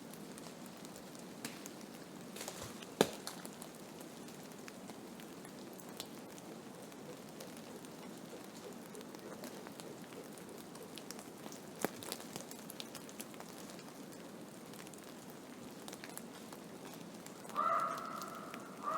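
Storm precipitation pattering steadily on a surface, with scattered sharp ticks and one loud click about three seconds in. Near the end a short pitched call sounds.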